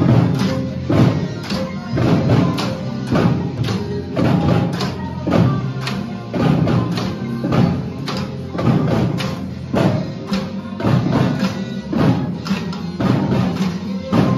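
Percussion ensemble playing a piece with a steady beat: drums, including large bass drums, together with wooden-bar mallet keyboard instruments.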